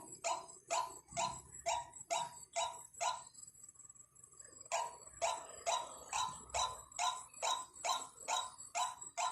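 White-breasted waterhen calling: a fast, even run of short "kwak" notes, about two and a half a second, that breaks off for over a second near the middle and then starts again.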